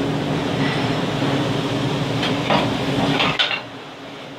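Stick-welding arc crackling and hissing steadily over a low hum, then breaking off abruptly about three and a half seconds in. A few light metal clinks come just before it stops.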